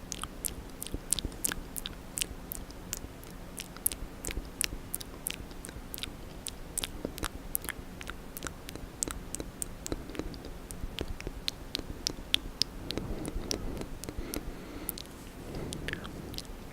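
Wet ASMR mouth sounds close to the microphone: a steady run of sharp, moist clicks and smacks of lips and tongue, several a second, turning softer and duller for a couple of seconds near the end.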